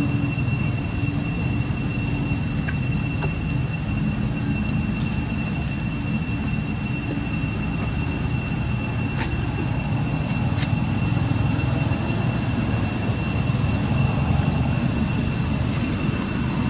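Cicadas keeping up a steady, high-pitched drone over a low rumble.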